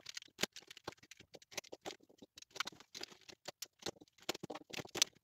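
A fast, irregular run of small plastic clicks and taps: loose 3x3 Rubik's cube pieces being picked up, set down on the mat and snapped together as the cube is reassembled.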